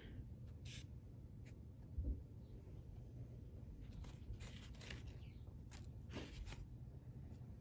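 Faint rustling and scraping of bread slices and gummy candies being handled on a paper plate, with a soft thump about two seconds in, over a low steady hum.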